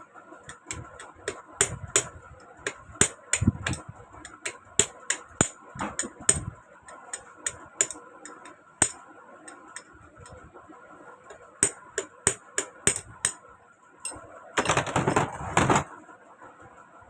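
Sharp metal-on-metal taps of a screwdriver against a sewing machine's rusted, jammed needle bar and presser bar to work them loose, coming one or two a second at uneven intervals. Near the end there is a rasping scrape lasting about a second and a half.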